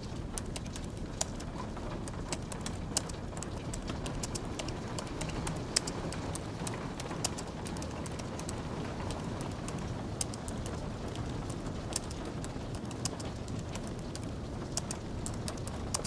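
Typing on a low-profile Apple Magic Keyboard: a quick, irregular stream of soft key clicks with a few louder taps, over a steady low background hiss.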